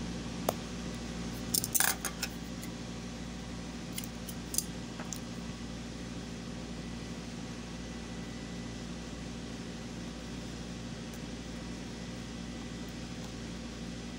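Scissors snipping at fabric and the metal zipper being handled: a few sharp clicks and snips in the first five seconds, the loudest cluster about two seconds in, over a steady low hum.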